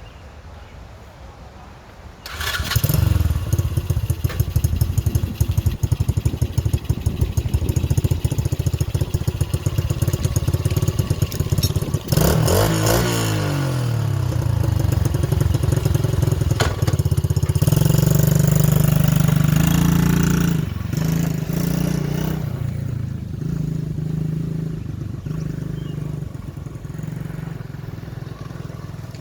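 Small Chinese quad bike's single-cylinder engine starting about two seconds in and running with rapid, uneven firing. It is revved up and down a few times, held at higher revs for a few seconds past the middle, then drops back to a lower, steadier speed.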